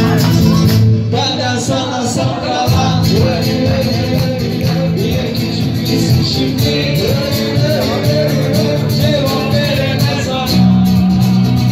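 Live acoustic guitar music with a man singing along.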